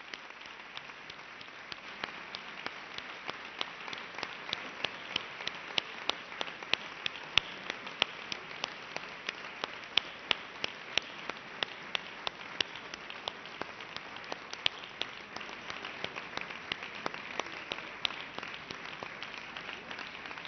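Audience applauding: many hands clapping steadily, with a few individual claps close by standing out sharply above the rest.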